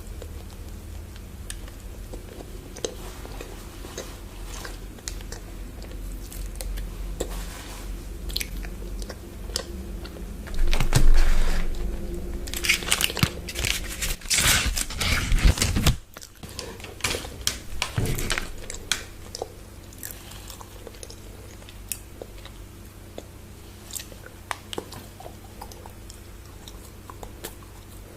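Close-miked chewing and crunchy bites of a chocolate bar, with a dense run of crunching in the middle and scattered smaller crunches and mouth clicks before and after.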